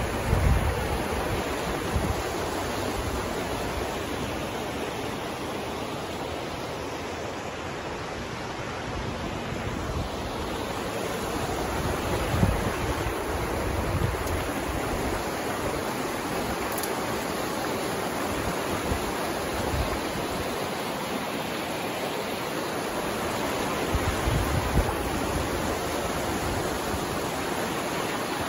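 Fast, shallow river rushing over rocks and rapids: a steady, even rush of water. A few brief low rumbles break through near the start, about 12 seconds in and about 24 seconds in.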